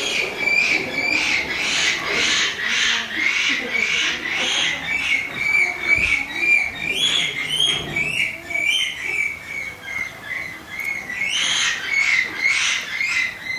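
A regular series of high-pitched animal calls over a steady high tone, about one call every two-thirds of a second, weakening in the middle and growing stronger again near the end.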